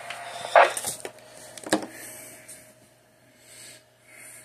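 Handling noise: a rustle about half a second in and a few sharp clicks and knocks over the next second or so, then near quiet with a faint hum.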